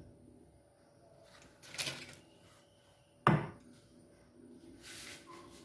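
Two sharp knocks of hard objects being handled or set down, the second and louder one about three seconds in, followed by a short soft rustle or hiss near the end.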